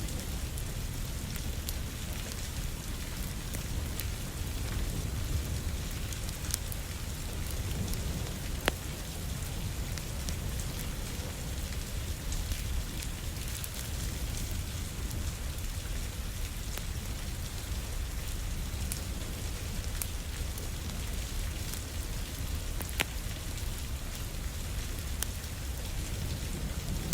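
Steady rain pattering on windows with a low rumble underneath. Scattered sharp crackles and pops from a wood fire run through it, with a louder pop about nine seconds in and another near the end.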